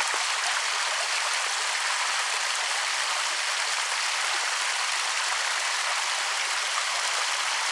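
Creek water running and splashing over a small waterfall, a steady even rush.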